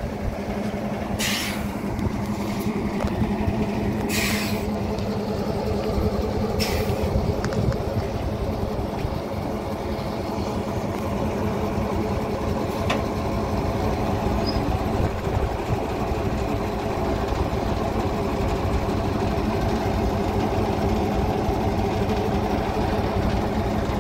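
Diesel engine of a Hudswell Clarke shunting locomotive running steadily as it draws up to its coaches. Three short hisses of released air from its brakes come in the first seven seconds.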